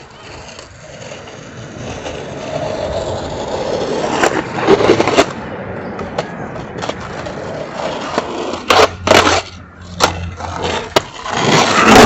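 Skateboard wheels rolling on pavement, the rolling noise growing louder over the first few seconds, followed by sharp clacks and knocks from the board, twice around nine seconds in and in a quick run near the end.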